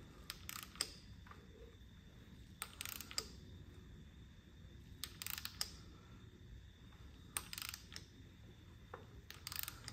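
Light mechanical clicking in five short bursts, each a few quick clicks, about two seconds apart.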